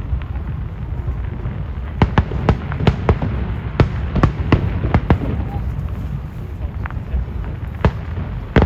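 Aerial fireworks going off: a continuous low rumble of bursts, with a quick run of sharp bangs and crackles starting about two seconds in and a few more single bangs near the end.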